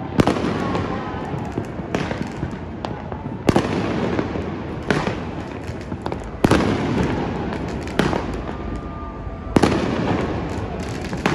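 Aerial fireworks bursting, a sharp bang about every one and a half seconds, each one trailing off into crackling.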